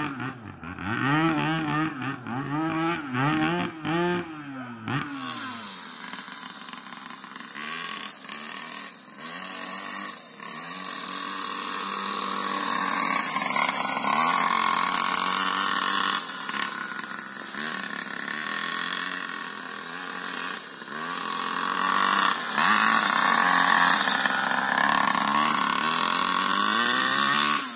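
Small two-stroke engine of a homemade RC buggy, a 49cc pocket-bike engine, revving up and down repeatedly as the buggy is driven. The pitch swings are quick and strong for the first few seconds, then continue thinner and higher-pitched.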